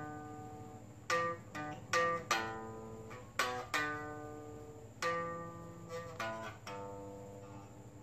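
Electric guitar picked in a slow spaghetti-western style twang: single notes and short runs, each one ringing out and fading before the next.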